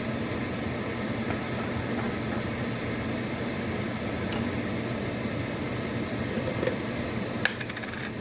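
Steady mechanical hum of a fan or appliance motor, with a few light clicks and clinks near the end.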